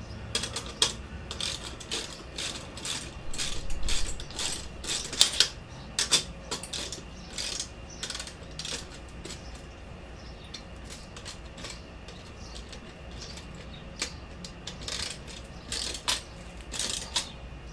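Runs of quick metallic clicks from a hand tool turning the screws of a motorcycle license plate bracket as it is tightened down. The clicking comes in spurts, stops for several seconds midway, then starts again near the end.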